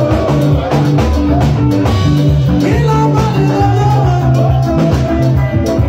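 Live Esan dance-band music played loud: a moving bass line over a steady beat.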